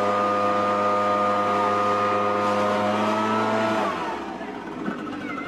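Gas-powered backpack leaf blower's engine running at full throttle, a steady high drone blasting into a leaf pile. About four seconds in the throttle drops and the engine note falls away, leaving a quieter rushing noise.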